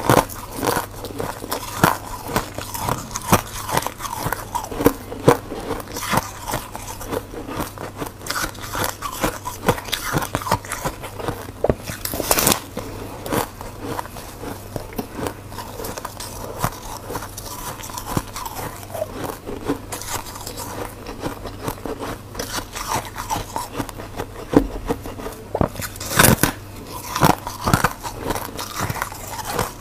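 Person biting and chewing a chunk of soft freezer frost, with a steady run of crisp crunching. There are a few louder bites about halfway through and near the end.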